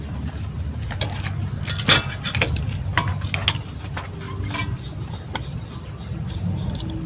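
Balut (fertilized duck egg) shells being cracked and peeled by hand: irregular small crackling clicks, the sharpest about two seconds in, over a steady low rumble.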